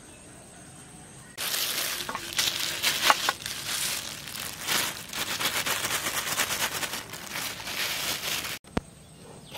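Thin plastic bag crinkling and rustling loudly, with a few sharper clicks, as raw chicken pieces are tipped out of it onto a steel plate. It starts abruptly about a second and a half in and cuts off suddenly near the end.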